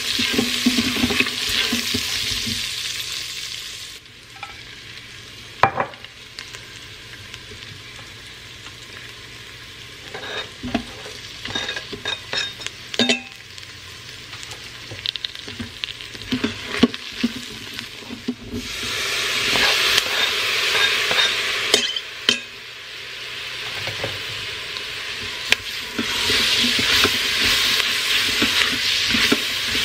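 Onions and vegetables sizzling in hot oil in the steel inner pot of an Instant Pot, stirred with a silicone spoon that knocks and scrapes against the pot. The sizzle is loud for the first few seconds, dies down to a quieter frying with spoon knocks, then grows loud again about two-thirds of the way through.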